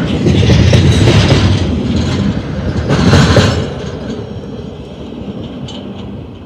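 Double-stack intermodal well cars rolling past at close range, their wheels clacking over the rail joints. The sound drops away about three and a half seconds in and fades as the end of the train moves off.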